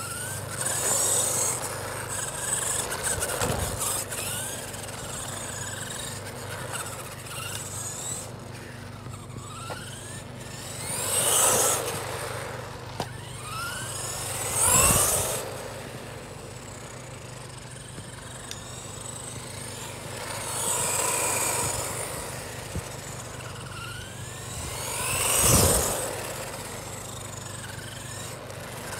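A 1/12-scale electric RC truck driving back and forth on asphalt. Its motor whines up and down in pitch as it speeds up and slows, with tyre noise. It swells louder several times as it passes close, loudest about 25 seconds in.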